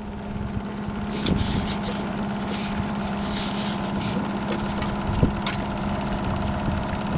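Small outboard motor running steadily at a low, even speed, pushing the boat along, with a light knock about five seconds in.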